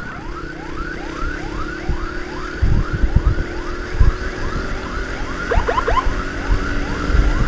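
Emergency siren sounding a rapid rising whoop, about two and a half sweeps a second. A second, faster-sweeping siren joins it briefly at the start and again about six seconds in, over a steady low hum and a few low thumps.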